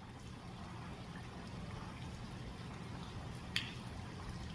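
Steady hiss of rain falling on leafy vegetation, with one sharp click about three and a half seconds in.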